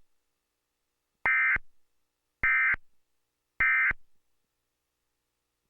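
Emergency Alert System end-of-message data signal: three short bursts of harsh digital data tone, about a second and a quarter apart, the code burst that closes an EAS broadcast.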